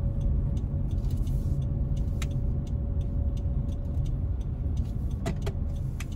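Low rumble of road and engine noise inside the cabin of a 2021 Honda Civic hatchback with a 1.5-litre turbo engine and CVT, driving at low speed. A faint regular tick sounds about three times a second, and two sharper clicks come near the end.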